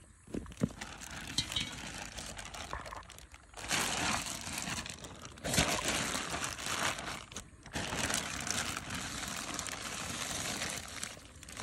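Thin clear plastic sheet crinkling as it is handled over a perforated metal basin, in several long stretches starting a few seconds in.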